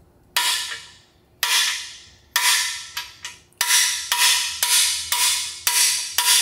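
Hammer striking a core-plug installer tool, driving a freeze plug into an engine block: about ten sharp metallic blows that ring briefly, about a second apart at first, then quickening to about two a second. The plug is moving in but not yet fully seated.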